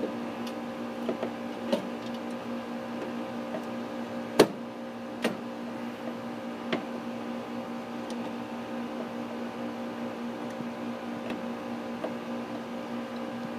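A few sharp clicks and knocks from handling a circuit breaker in an electrical meter center, the loudest about four seconds in. They sit over a steady mechanical hum.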